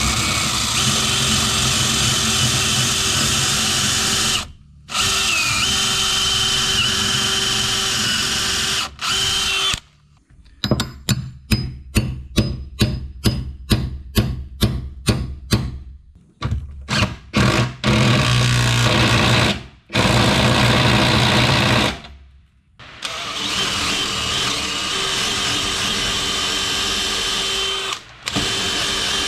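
Cordless drill boring through a wooden 6x6 post with a long bit, running steadily under load in several long runs with brief stops. In the middle comes a quick series of sharp knocks, about two or three a second, as a half-inch carriage bolt is driven into the post.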